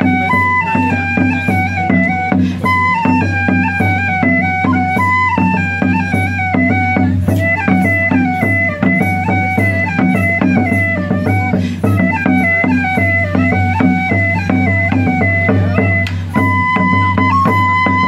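Live folk band playing a Breton an dro dance tune: a quick stepping melody over a steady low drone.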